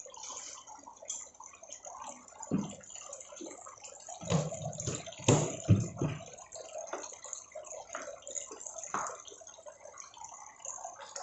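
Scattered light clinks and knocks of stainless-steel dog bowls and their metal stands being handled, with a cluster of louder thuds a little before the middle.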